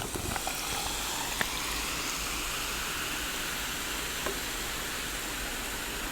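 Cranberry sparkling water fizzing in a cup, a steady hiss of bursting bubbles with a few tiny pops.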